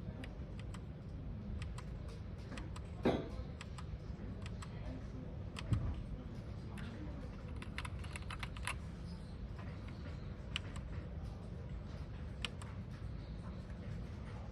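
Keystrokes on a 60% mechanical keyboard with foam-damped keys: scattered clicks with a quick run of presses about eight seconds in. Two louder knocks come about three and six seconds in, over a steady low hum.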